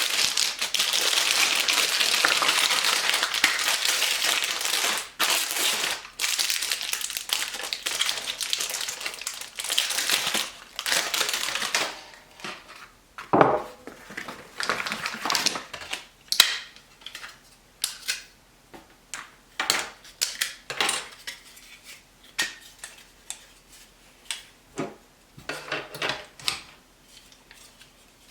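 Plastic packaging rustling and crinkling without a break for about twelve seconds, then a run of separate sharp plastic clicks and knocks as hard drives and the NAS drive trays are handled.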